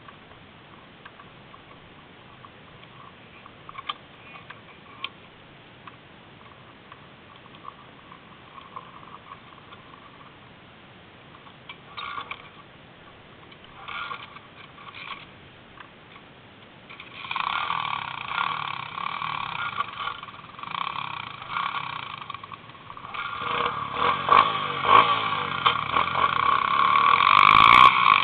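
A pit bike's engine starts running about two-thirds of the way in and gets steadily louder toward the end. Before that there is only near quiet with a few faint knocks.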